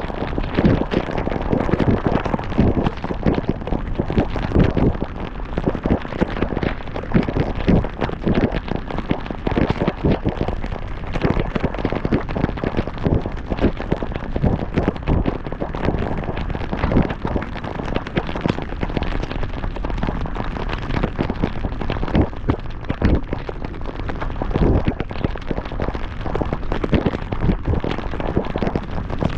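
Heavy rain pelting a moving car and the camera, a dense, irregular patter of hard drops over wind and road rumble.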